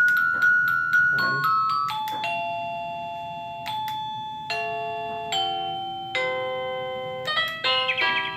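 VicTsing wireless doorbell receiver playing one of its electronic chime tunes while its ringtone is being selected with the sound-select button: a melody of clear ringing notes that each fade out, with a quicker run of notes starting about seven seconds in.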